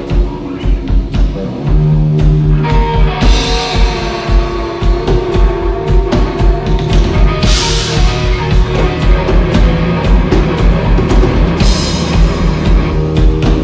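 Rock band playing live on electric guitar, bass guitar and drum kit: an instrumental passage over a steady kick-drum beat, with a cymbal crash about every four seconds.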